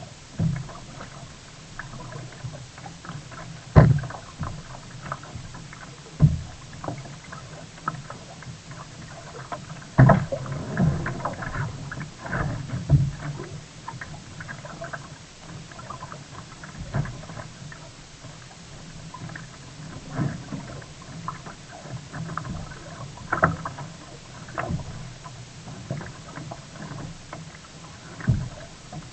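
Sea kayak on the water: paddle splashes and water slapping against the hull, with irregular heavier thumps every few seconds.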